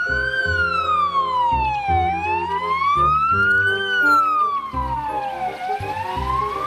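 Ambulance siren on a slow wail, its pitch rising and falling smoothly, each full rise and fall taking about three and a half seconds, over background music with a low beat.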